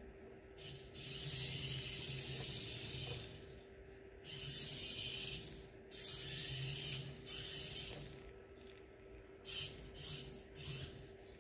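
Tiny electric drive motor and gears of a Diatone SNT R27 1/100-scale FPV RC car whirring in bursts as the throttle is applied and released. There is a long run of about two seconds, then three shorter ones, then a few quick blips near the end.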